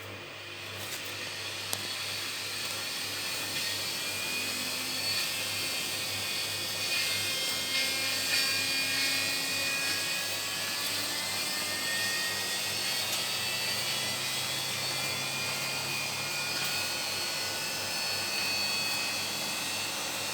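Miele W1734 washing machine spinning its drum at high speed: a steady motor and drum whine with several high tones that drift slowly in pitch, growing louder over the first few seconds as it speeds up and then holding steady.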